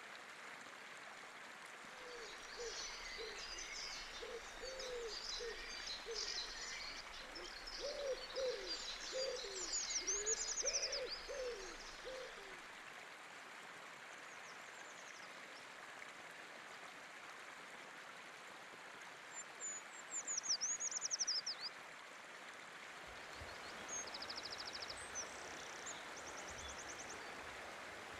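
Woodland birdsong over the steady rush of a river. For roughly the first ten seconds a low-pitched bird gives a series of soft, repeated calls, while small songbirds sing high, thin phrases. High descending trills come about ten and twenty seconds in, and quick high trills come near the end.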